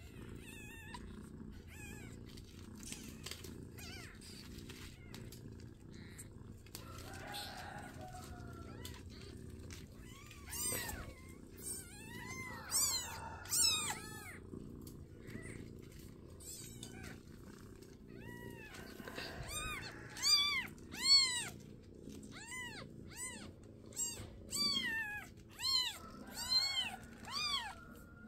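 Newborn kittens mewing: short, high-pitched cries that rise and fall in pitch, starting about ten seconds in and coming in a quick run of calls near the end.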